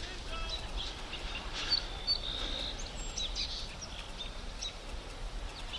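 Outdoor background noise with scattered short bird chirps.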